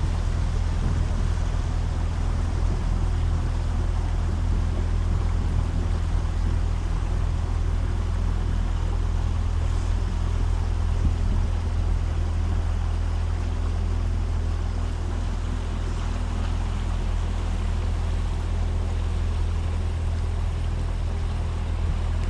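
A small boat's motor running steadily at an unchanging pitch, with a haze of water and wind noise over it.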